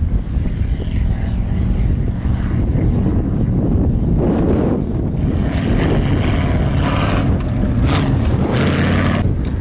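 Off-road race vehicle's engine running hard, with surges of louder noise in the second half, over heavy wind rumble on the microphone.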